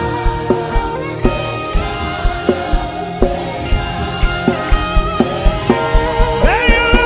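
Gospel worship band music: a steady drum beat under held keyboard and guitar chords, with a singing voice coming in near the end.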